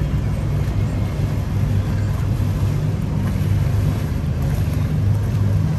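River cruise boat's engine running with a steady low hum as the boat comes alongside the pier.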